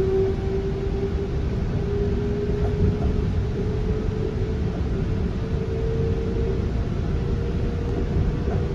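Metra electric commuter train running, heard from inside the car: a constant low rumble with a steady electric motor whine that slowly rises in pitch.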